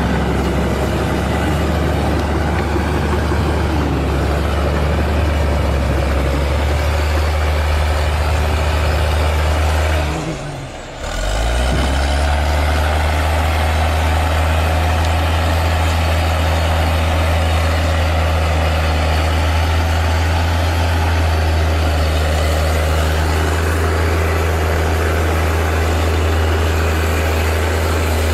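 Six-rotor drone's motors and propellers running with a steady hum. The sound drops away for about a second around ten seconds in, then comes straight back.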